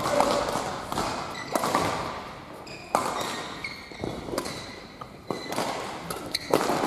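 Badminton doubles rally: about six sharp racket hits on the shuttlecock, roughly every second and a half, with shoes squeaking on the court floor in between.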